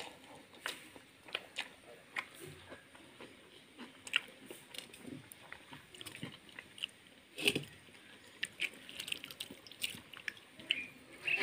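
Eating by hand: fingers squeezing and mixing water-soaked rice (pakhala) in a steel bowl, with soft wet sounds and scattered small clicks, one sharper click about seven and a half seconds in.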